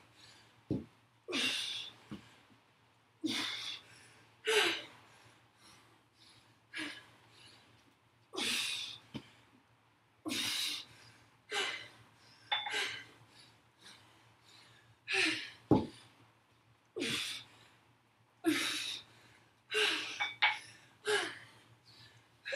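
A woman breathing hard through a dumbbell squat-and-press set, with a sharp, noisy exhale every second or two in time with the reps. A few brief low thuds, like feet landing, come between them.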